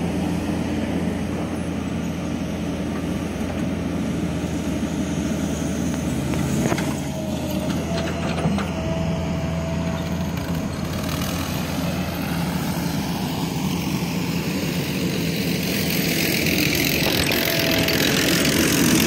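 An engine running steadily, with a few sharp knocks about seven and eight and a half seconds in. A thin higher whine comes in partway through and again near the end, and the sound grows louder toward the end.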